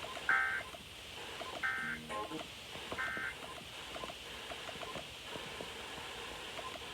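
Emergency Alert System end-of-message data bursts: three short, raspy digital warbles about 1.3 s apart, the signal that closes a required monthly EAS test, heard over a radio broadcast.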